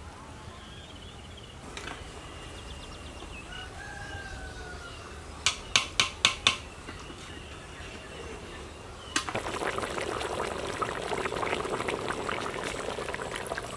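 Faint birds calling, then four sharp knocks in quick succession about halfway through. From about nine seconds in, a pot of thick stingray fish curry bubbling and spluttering steadily.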